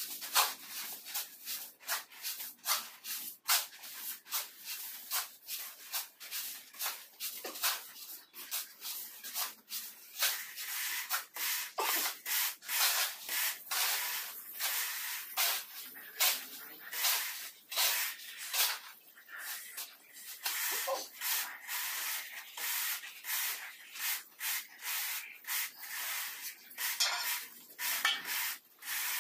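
Hand tools scraping and rubbing over semi-dry sand-and-cement floor screed mortar as it is spread and levelled, in quick repeated strokes, several a second.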